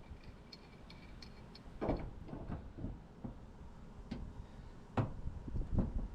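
A string of light ticks, then a few sharp knocks, from tools and brass pipe fittings being handled during the plumbing work.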